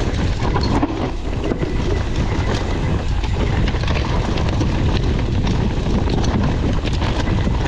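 Steady, loud wind noise buffeting the microphone, rumbling low with scattered crackles.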